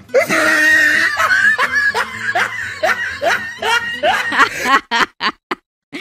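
A cartoon character laughing: a long opening laugh, then a steady run of short laugh bursts about three a second, breaking into a few short breaths near the end.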